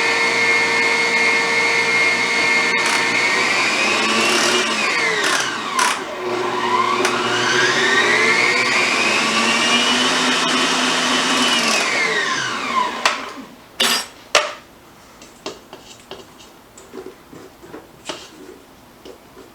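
Electric mixer beating egg whites with added salt and vanilla, its motor whining steadily, dropping in speed about five seconds in, speeding up again, then winding down and stopping about two-thirds of the way through. A few sharp knocks follow right after it stops.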